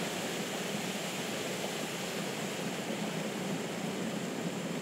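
Foam solution rushing steadily out of both outlets of a foam test header and splashing onto pavement, during a full-flow test of a bladder tank foam system. The discharge is producing foam.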